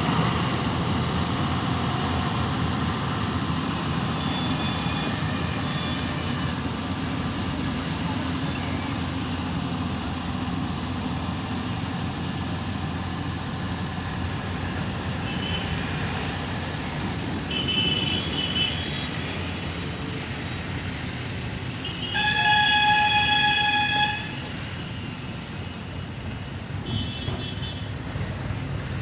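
Steady low rumble of engines and traffic, with a vehicle horn blaring for about two seconds near the end. A few fainter, shorter horn toots sound earlier and later.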